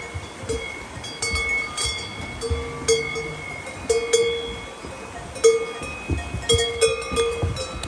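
Cowbells on Swiss cows clanking irregularly as the animals move, each strike ringing on briefly, with more than one bell sounding.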